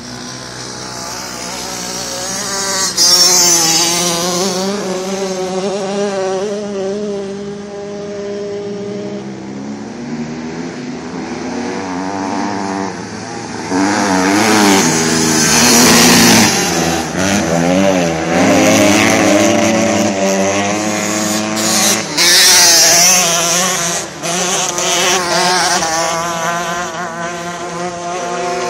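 Several dirt-bike engines racing around a dirt flat track, revving up and down through the gears and corners. They grow loudest as the riders pass close, around the middle and again a few seconds later.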